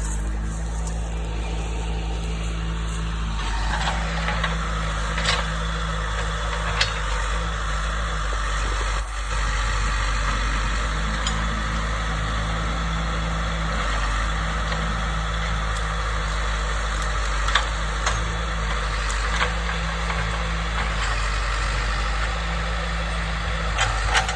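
Diesel engine of heavy land-clearing equipment running steadily, then working harder about three seconds in, with scattered sharp cracks and clanks from the work.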